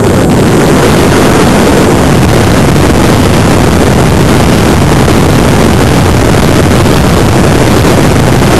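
Steady, loud wind rush over the onboard camera microphone of a Stryker RC jet falling in a spin with its motor cut, no motor tone heard.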